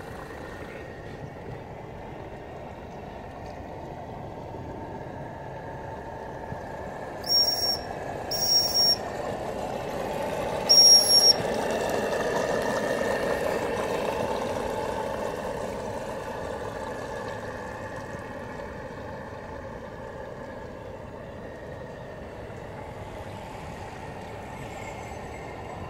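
Small model steam engine (Saito T-1 DR) running steadily in a steam launch, its sound swelling as the boat passes close and then fading. Three short, shrill steam-whistle blasts sound a little over a quarter of the way in, the third slightly apart from the first two.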